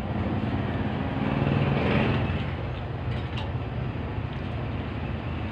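A vehicle engine running with a steady low hum, growing louder about two seconds in and then easing off, with a short click a little past the middle.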